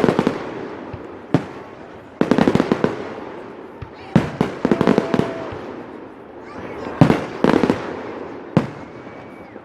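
Fireworks display: volleys of sharp bangs and crackles every second or two, each cluster dying away slowly.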